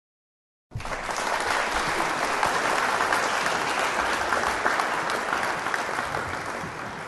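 Audience applauding: many hands clapping in a dense patter that starts abruptly just under a second in and eases off slightly toward the end.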